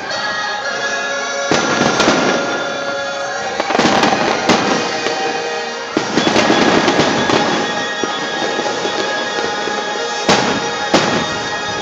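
Aerial fireworks bursting: a string of sharp bangs with crackle between them, over music playing along with the show.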